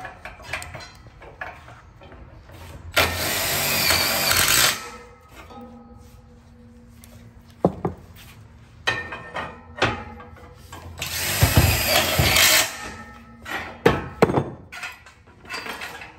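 Cordless drill driving screws into a metal railing frame in two runs of about two seconds each, several seconds apart, with sharp metal knocks and clanks between them.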